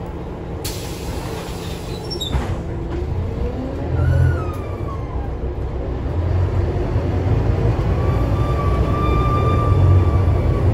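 Scania K320UA articulated bus under way, heard from inside the passenger cabin: a steady low engine and road rumble that grows louder in the second half. A whine rises and falls about four seconds in, and a steady whine comes in near the end.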